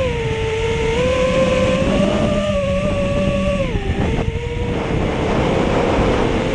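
Brushless BR2205 2300KV motors of an FPV quadcopter whining in flight, their pitch rising and falling with throttle and dipping briefly about four seconds in. A low wind rumble on the onboard camera's microphone runs underneath.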